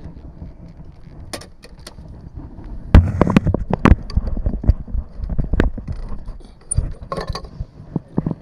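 Handling noise of clothing rubbing against a body-worn camera while hands knock and scrape on the metal skin of a Lake Buccaneer amphibian's wing and hull. There is a cluster of loud knocks about three to four seconds in and single knocks after it, with a hand working a filler cap near the end.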